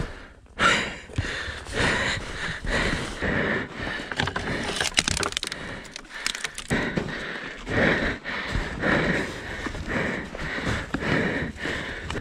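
Heavy breathing of a dirt-bike rider catching his breath, about one breath a second, with scuffs and rustling mixed in; no engine running.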